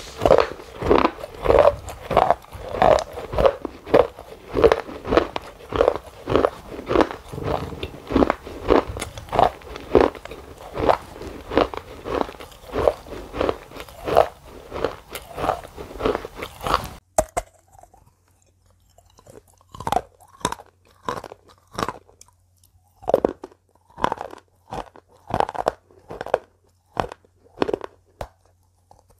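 Close-miked chewing-like mouth sounds: wet, crunchy clicks in a steady rhythm of about two a second. About 17 s in they change to sparser, irregular mouth noises over a faint low hum.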